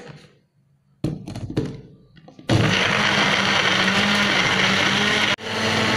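Small personal blender: a few knocks about a second in as the cup is handled, then the motor runs loud and steady, grinding shallots, garlic, chillies and spices with water into a wet paste. It cuts out for an instant near the end and starts again.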